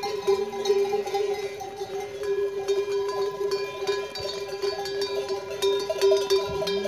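Bells on a moving flock of sheep ringing and clanking continuously as the animals walk, many bells jangling together.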